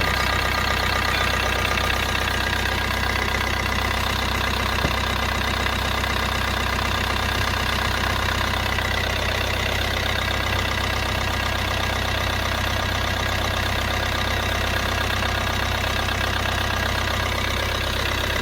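Fiat Grande Punto 1.3 Multijet diesel engine idling steadily.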